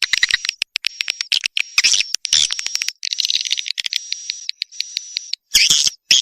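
Swiftlet calls of the kind played to lure swiftlets into nesting houses: rapid trains of clicks and high, buzzy twittering chirps in quick repeated phrases, with a brief pause a little over two seconds in.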